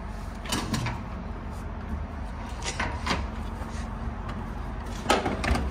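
Knocks and clicks of a diesel pump nozzle being pulled from a truck's fuel tank and handled back toward the pump, a handful of short sharp clacks over a steady low hum.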